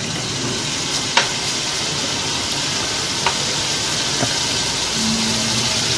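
Ground beef and sliced button mushrooms sizzling steadily in a large aluminium pot, with a couple of light clicks.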